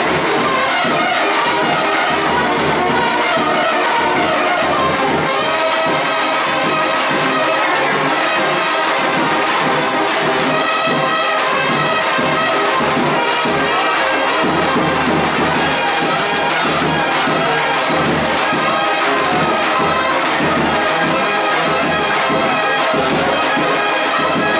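Serbian trubači brass band playing loud and without a break, with trumpets and flugelhorns carrying the melody over tenor horns and a pulsing low beat.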